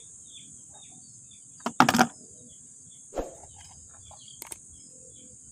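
Insects droning steadily at a high pitch, with scattered short bird chirps. Two sharp knocks stand out, the louder one about two seconds in and another about three seconds in.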